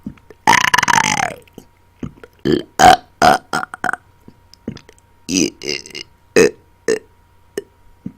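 Loud belches on command: one long belch about half a second in, its pitch sliding down, then a string of short, separate burps.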